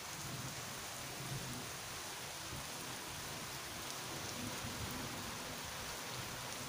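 Rain falling steadily on wet pavement and trees during a storm with small hail, with a few faint ticks.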